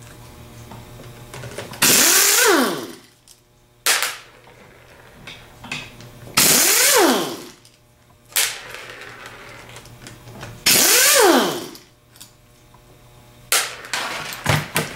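Half-inch impact wrench run in three bursts of about a second each, its pitch rising briefly then falling away under a hiss, spinning out the Torx bolts of a 42MT starter's drive housing. Sharp metal clicks come between the bursts and in a quick cluster near the end.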